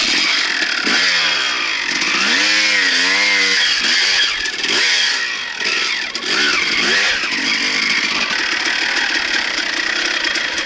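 Suzuki RM250 single-cylinder two-stroke dirt bike engine revving hard under load, its pitch rising and falling again and again as the throttle is worked. It comes in suddenly at the start, with the widest swings a few seconds in.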